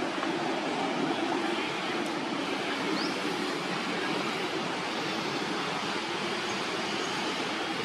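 Steady rushing noise, with a few faint, brief high chirps.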